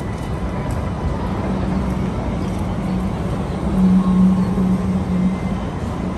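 Coupled low-floor electric trams rolling slowly past close by: a steady rumble of wheels on rail with a low electric hum that grows louder about four seconds in.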